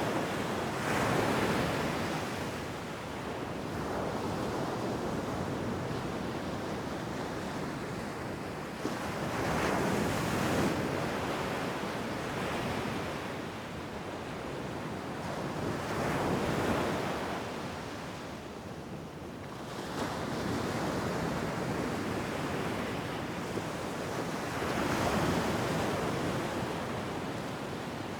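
Ocean surf breaking on a beach, waves washing in as swells of rushing noise every six to eight seconds, with wind in the background.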